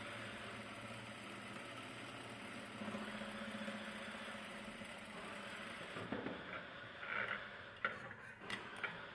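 Industrial lockstitch sewing machine stitching a top stitch: a steady motor hum that speeds up for a second or two about three seconds in. After about six seconds come fabric rustling and a few sharp clicks.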